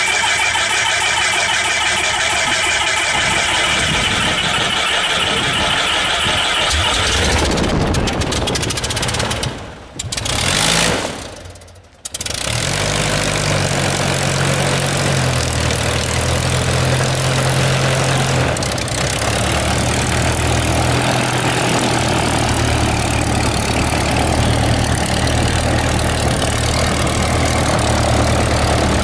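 Lycoming IO-320 four-cylinder aircraft engine of an RV-6 running just after start-up, with the propeller turning. For the first several seconds it is loud and high-pitched. After the sound briefly drops out around ten to twelve seconds in, it runs as a steady low idle.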